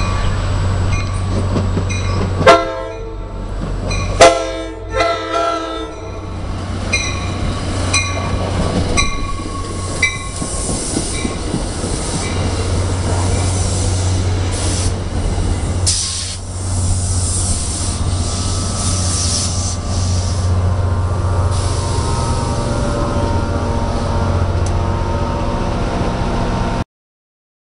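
Approaching NJ Transit push-pull train sounding its horn in loud blasts about two and a half and four seconds in, over grade-crossing warning bells ringing about once a second. The train then passes close by with wheel and rail noise over the steady drone of the F40PH-2CAT diesel locomotive pushing at the rear, until the sound cuts off abruptly near the end.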